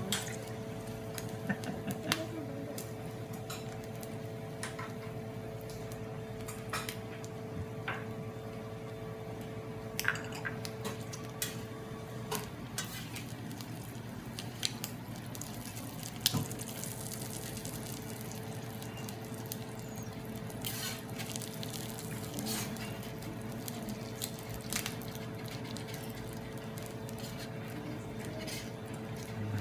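Shrimp sizzling in oil on a teppanyaki steel griddle, with scattered clicks and scrapes of a metal spatula on the plate. A steady hum underneath drops out for a few seconds near the middle.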